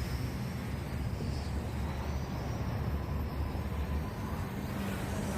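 MJX X400 quadcopter's small motors and propellers whining in flight, the pitch wavering up and down with the throttle, over a steady low rumble.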